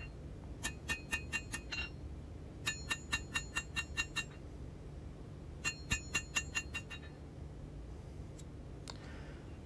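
Hand hammer planishing a hot slot punch on an anvil with light blows, in three quick runs of six or seven ringing strikes each, with short pauses between the runs.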